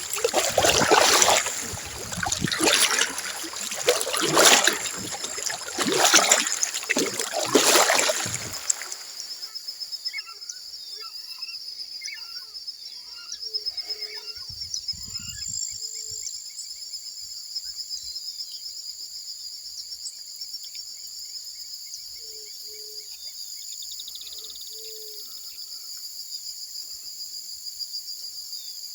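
Kayak paddle strokes splashing in the water, about one every second and a half, six or so before the paddling stops about eight seconds in. A steady high insect trill and scattered small bird chirps and calls remain.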